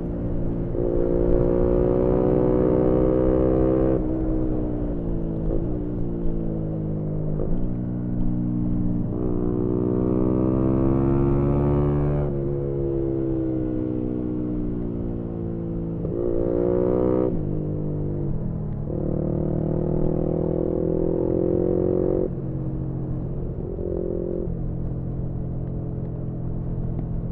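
2018 Yamaha MT-125's single-cylinder 125 cc engine through a GPR aftermarket exhaust, heard onboard while riding: the revs climb, drop suddenly, and climb again several times over, as on a twisty road.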